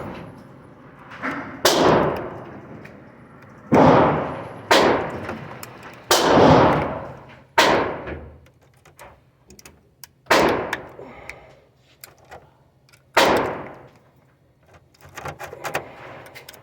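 Taurus G2C semi-automatic pistol firing about seven single shots at uneven intervals, one to three seconds apart, each ringing out briefly. The gun is cycling without locking up.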